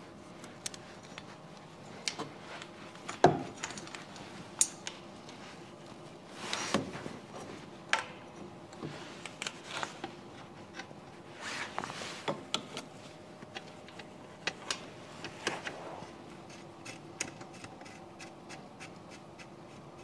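Handling noises as a braided metal oil hose is fed through an aircraft engine bay: scattered light clicks, taps and scrapes of the hose and fitting against engine parts, with one sharper knock about three seconds in.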